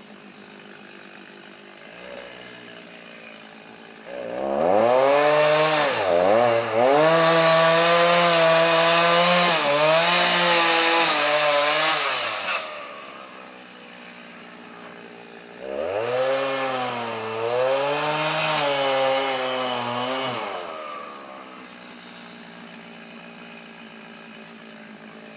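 Chainsaw idling, then revved up and cutting into a fallen tree twice: about eight seconds, then about five seconds, with the engine pitch dipping as the chain bites, and idling in between.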